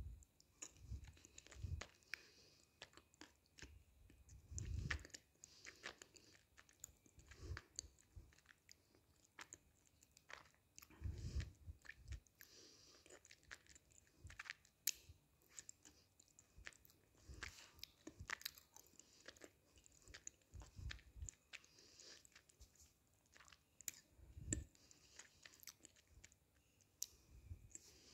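Close-up chewing and crunching of roasted clay: faint, crisp crunching clicks throughout, with a soft low thump every few seconds.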